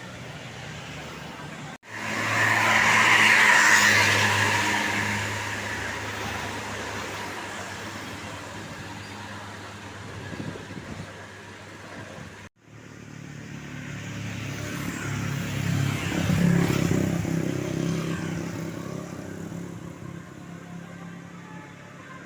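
Tour buses driving past on a road: two separate pass-bys, each swelling to a peak of engine and tyre noise and then fading away, with a sudden break between them.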